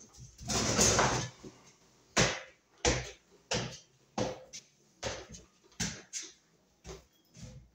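A screw being driven into wood behind the wall in a run of short, even strokes, about one every two-thirds of a second, getting slightly weaker, after one longer stroke near the start.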